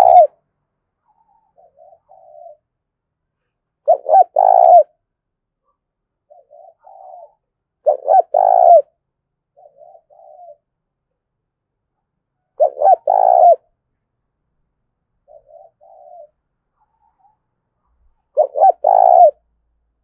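Caged spotted dove cooing its song: a loud phrase of a few short coos ending in a longer, drawn-out coo, repeated about every four to five seconds. Fainter, shorter coos come between the phrases.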